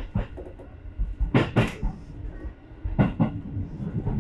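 A JR West Nara Line train running over jointed track: the wheels click over the rail joints in pairs of sharp knocks, a pair roughly every one and a half seconds, over a low running rumble.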